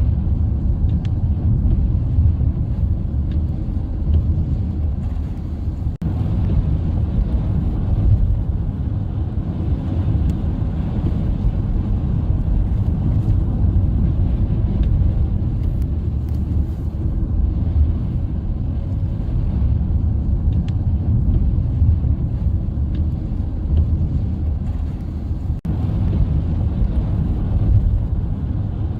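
Steady low rumble of a moving car: road and engine noise.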